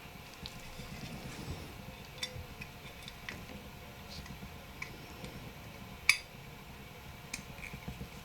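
Light, scattered clicks and taps of small plastic and metal parts being handled on a workbench, with one sharper click about six seconds in.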